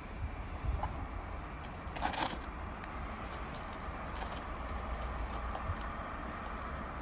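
Steady low rumble of idling diesel rail vehicles, with scattered faint clicks and a short hiss about two seconds in.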